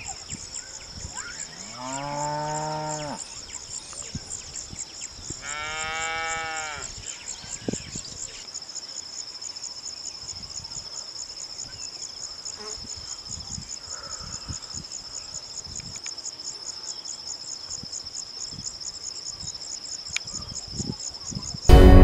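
A cow mooing twice, a low drawn-out call about two seconds in and a second one near six seconds, over a steady high-pitched insect trill. A sudden loud burst of sound cuts in right at the end.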